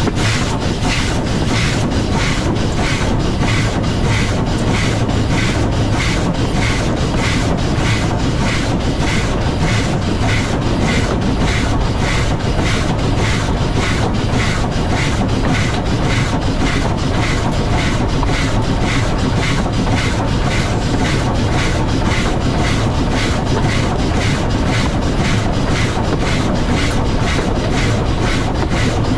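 W class steam locomotive running along the line, with a steady, even beat about twice a second over continuous running noise of wheels on rail.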